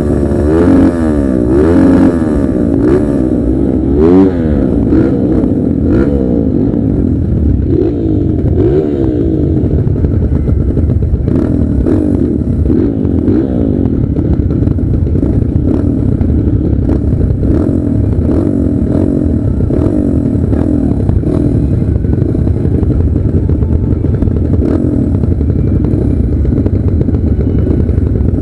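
Several motocross bikes racing, their engines revving up and down and overlapping. The revving is loudest in the first few seconds.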